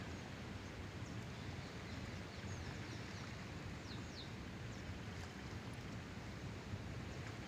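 Steady outdoor background noise with a low rumble, and a few faint, short bird chirps falling in pitch between about two and four seconds in.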